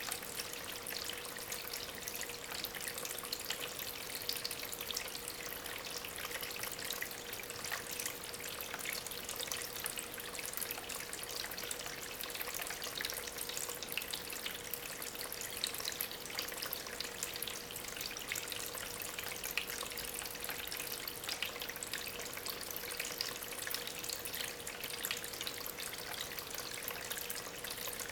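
Small homemade tabletop waterfall over stones, its water running and trickling steadily with many small splashes and drips, a faint steady hum underneath.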